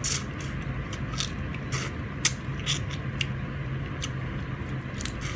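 Mouth and finger sounds of someone eating prawns by hand: a string of short clicks and smacks from chewing, lip smacking and finger-sucking, over a steady low hum.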